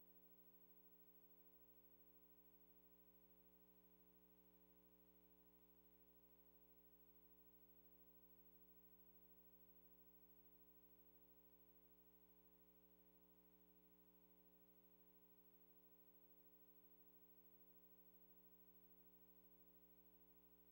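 Near silence: only a faint, steady hum, unchanging throughout.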